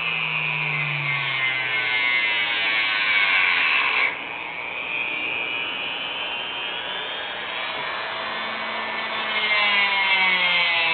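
Small handheld rotary tool with a cutoff wheel whining at high speed, cutting a little off a small carved wooden pipe to shorten it. Its pitch sags and recovers as the wheel bites into the wood, and it turns quieter about four seconds in.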